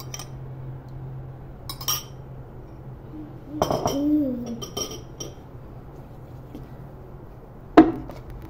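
Metal spoon clinking against a white ceramic bowl while stirring, a few separate sharp clinks, with one sharp knock near the end the loudest.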